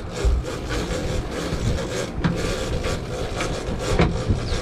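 Twin outboard engines running with the boat under way, under a steady rush of wind and water, with a few knocks about a second in, around two seconds in and near the end.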